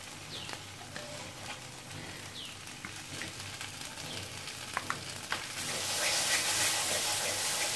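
Onion-spice masala sizzling faintly in a non-stick wok, with a couple of light clicks as nut paste is spooned in. About two-thirds of the way through, a wooden spatula starts stirring the paste through, and the sizzling and scraping grow louder.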